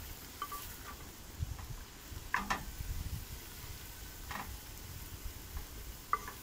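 Meat sizzling in a cast-iron pot over a wood fire while being stirred, with a few sharp scrapes and knocks of the utensil against the pot.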